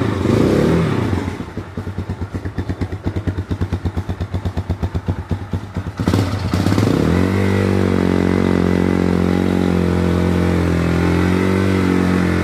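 CFMoto 230 Dual trail bike's carbureted single-cylinder engine running cold on choke. A rev dies away to a slow, pulsing idle with each beat distinct. About six seconds in it is revved up and held at a steady higher speed.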